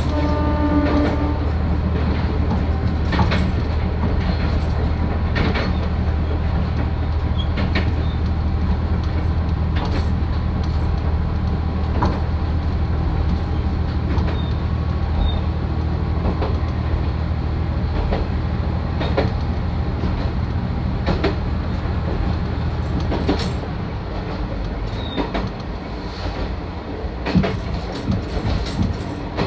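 Isumi Railway Type 350 diesel railcar on the move, heard from inside the car: a steady low diesel engine drone, with the wheels clicking over rail joints about every two seconds. About 23 seconds in, the engine drone drops away while the rail-joint clicks carry on.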